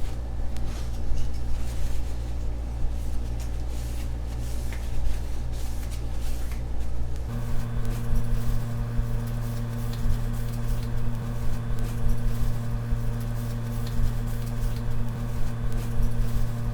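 Steady electric motor hum with a low drone and a few fixed tones, changing pitch character about seven seconds in, with small irregular scraping or handling noises over it.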